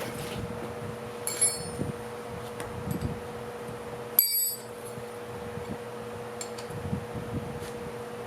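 Metal parts being handled: two sharp clinks with a brief high ring, about a second in and about four seconds in, with lighter knocks between, over a steady hum.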